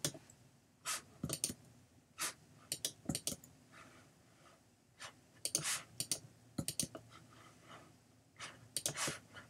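Soft computer mouse clicks, a dozen or so short clicks scattered irregularly, some in quick pairs, as a right-click menu is opened and worked through.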